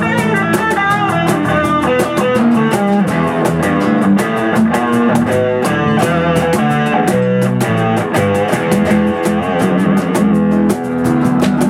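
Live rock band playing an instrumental break: a lead guitar playing bent notes over a drum kit keeping a steady beat.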